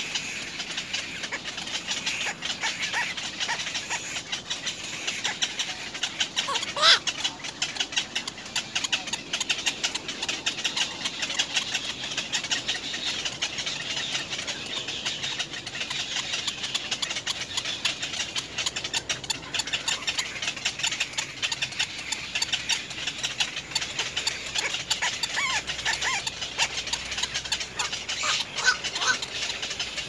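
Black-crowned night heron chicks in the nest giving a continuous rapid ticking chatter, with a few short rising squeaky calls about seven seconds in and again near the end.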